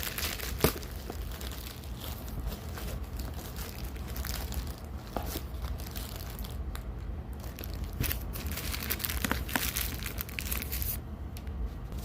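Hands unwrapping packaging: irregular crinkling, rustling and tearing, over a steady low hum.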